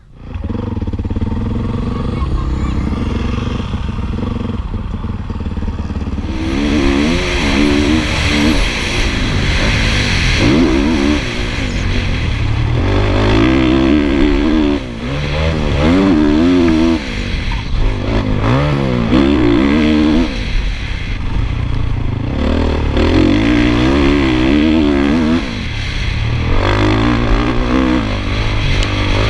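Honda motocross bike's engine running quietly at first, then about six seconds in revving hard and easing off again and again as it is ridden through the gears around a dirt track. Heard from the rider's helmet camera with heavy wind noise.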